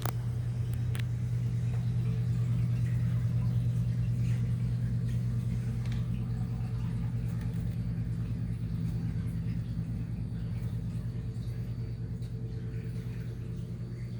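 Steady low hum of aquarium pumps running, with a couple of small clicks near the start.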